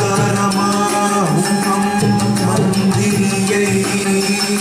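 South Indian classical devotional music for dance: a sung melody held on long notes over hand-drum percussion, with the jingle of the dancer's ankle bells.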